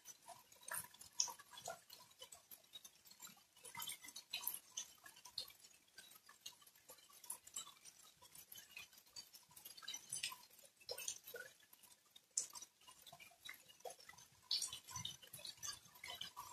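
Light rain: raindrops and drips tapping irregularly as many small, quick clicks over a faint hiss.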